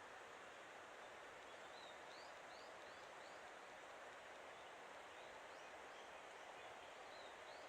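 Faint outdoor ambience: a steady soft hiss, with a small bird giving short, high, rising chirps in quick runs of three or four, repeated a few times.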